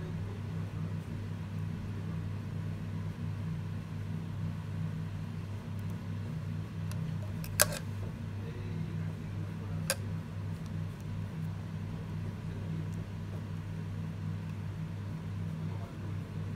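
Two sharp metallic clicks, about two seconds apart, from small steel parts of a sewing machine's needle clamp being handled and fitted, over a steady low hum.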